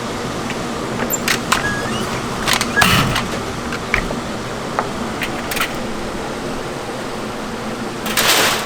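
A steady mechanical hum, with scattered light clicks and knocks from hand work. A short rushing, scraping noise comes near the end.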